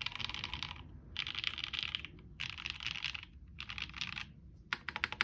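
Typing on a WKL Monokei Kei R2 aluminium keyboard fitted with NovelKey Cream linear switches on a POM plate and GMK keycaps. Five quick bursts of rapid keystrokes, each under a second, with short pauses between them.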